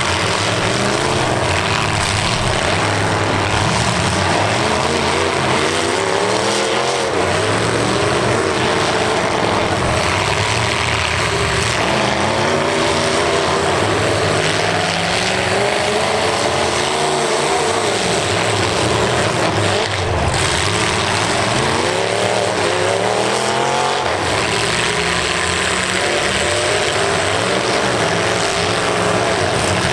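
Demolition derby cars' engines revving hard, several at once, their pitch rising and falling repeatedly as the cars drive and ram in the arena.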